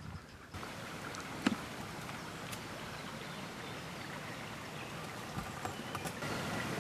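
Steady outdoor background hiss beside a river that sets in suddenly about half a second in, with one sharp click about a second and a half in.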